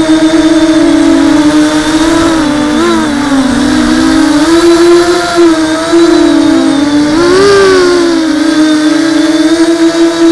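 ZMR hexacopter's brushless motors and propellers whining steadily, heard close up from the onboard camera. The pitch dips for a second or so about three seconds in and swoops up briefly near seven and a half seconds.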